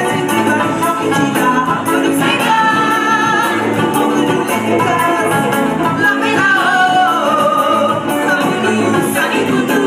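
A live band plays with a woman singing the lead into a microphone, over electric guitars, bass and a steady percussion beat.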